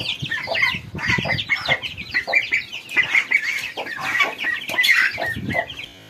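Chickens clucking and chirping, many short calls overlapping several times a second.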